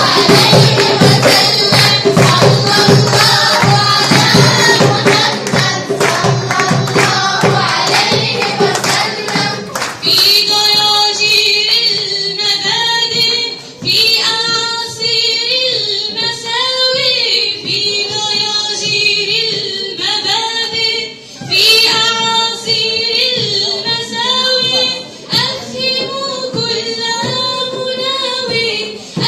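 Singing with a high voice over music: for about the first ten seconds a fast, dense beat of hand percussion runs under the singing, after which the singing carries on with little percussion and pauses briefly a few times.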